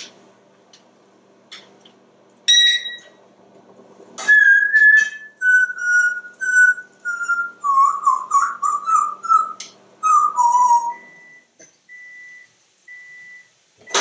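African grey parrot whistling: one short note, then a run of clear notes that step down in pitch and waver in the middle. Three short, even beeps follow near the end.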